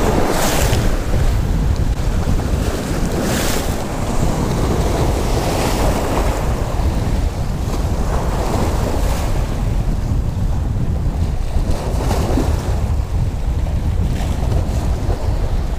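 Waves breaking and splashing against shoreline rocks every few seconds, over a steady rumble of wind buffeting the microphone.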